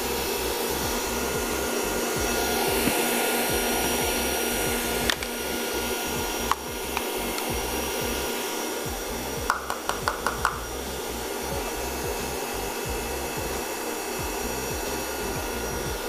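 Electric stand mixer running steadily, whipping whole eggs until they triple in volume. A quick run of light clicks comes about ten seconds in.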